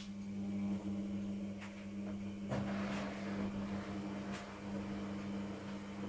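Logik front-loading washing machine's drum motor coming on and humming steadily as it turns the drum, with a few soft knocks and a short swish of laundry tumbling inside.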